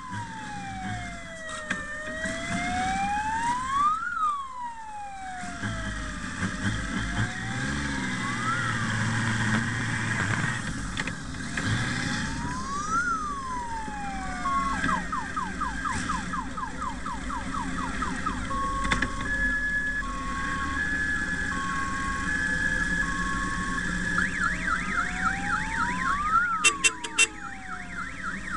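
Electronic sirens going through a slow rising-and-falling wail about once every four seconds, a fast yelp and a high-low two-tone, over the low running of Honda Gold Wing motorcycles rolling past in a convoy.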